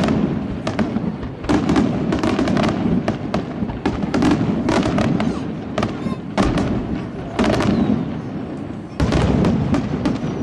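Aerial fireworks display: a continuous barrage of shell bursts and crackling, with a sharp report every second or so.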